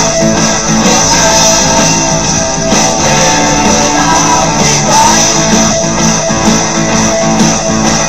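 Rock music with electric guitars, loud and continuous.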